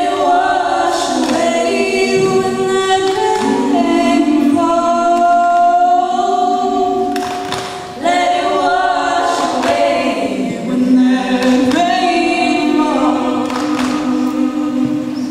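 All-female a cappella group singing: a solo voice carries the melody over sustained chords from the backing singers, with a short break in the phrase about eight seconds in.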